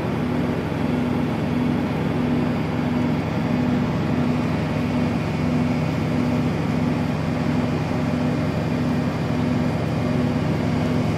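Parked semi trucks' diesel engines idling: a steady low drone with a second low tone that swells and fades about once or twice a second.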